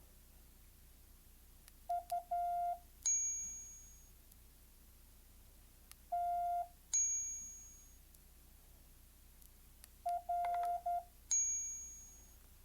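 Morse code tones from a phone trainer app: three groups of short and long beeps at one steady mid pitch, dits and dahs, each followed by a bright, high, bell-like ding that rings and fades over about a second. The dings come roughly every four seconds and are louder than the beeps.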